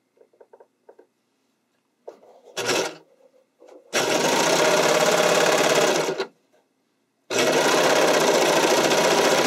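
Serger (overlock machine) running at speed, stitching elastic onto the folded edge of spandex fabric. It makes a brief blip first, then two steady runs of about two and three seconds with a pause between. A few faint handling clicks come before the first run.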